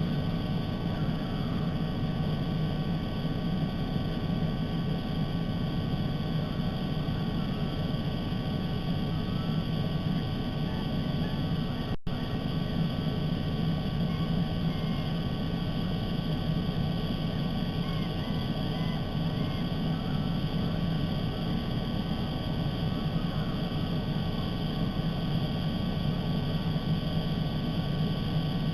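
Steady low rumbling outdoor noise from the nest camera's microphone, with faint scattered bird chirps over it. The sound drops out for an instant about twelve seconds in.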